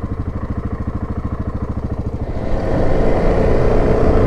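2017 Yamaha Grizzly 700 ATV's single-cylinder four-stroke engine running at low speed with an even pulsing beat. About two and a half seconds in, it becomes louder and rougher as the ATV moves along the dirt trail.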